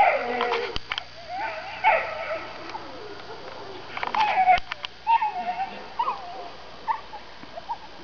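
A dog whining in wavering whimpers, which turn into short, separate yips in the second half, with a few sharp clicks near the middle.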